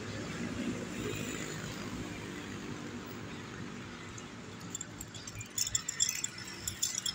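Metal climbing hardware on a rope-access harness (carabiners and rope clamps) clinking and jingling in quick irregular ticks as the climber works his way up the rope, starting about four and a half seconds in, over a steady low hum.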